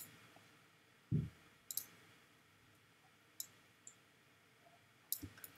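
Faint, scattered clicks from the computer's pointing device as the CAD software is worked, with one soft low thump about a second in.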